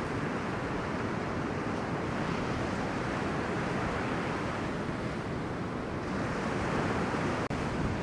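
Strong offshore wind buffeting the camera microphone over the steady rush of breaking surf, with a momentary dropout near the end.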